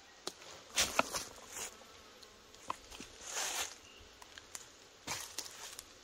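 Irregular clicks, knocks and short rustles from hands-on work on a bush shelter frame, the sharpest knocks about a second in.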